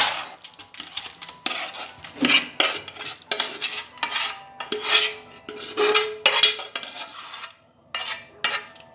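A utensil scraping and clinking against a metal pot and a stainless steel bowl as boiled carrot, potato and rice mash is scraped out of the pot into the bowl: a run of short, irregular scrapes, about two a second, with a brief lull near the end.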